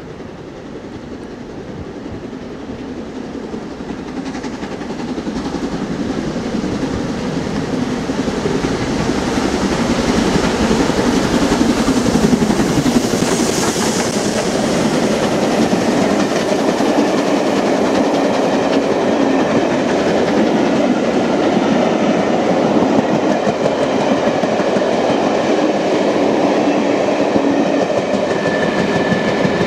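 LMS Princess Coronation Class 4-6-2 steam locomotive No. 46233 Duchess of Sutherland approaching and passing at speed. It grows steadily louder and is loudest as the engine goes by about 13 seconds in, with a brief rush of high-pitched noise. Its train of coaches then rolls past with wheels clacking over the rail joints.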